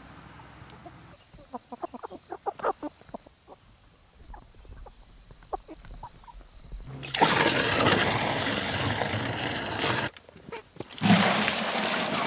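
Water poured from a bucket into a hanging bucket-style chicken waterer, splashing in two stretches, the first about three seconds long and the second shorter after a brief pause. Before that come scattered short soft clicks.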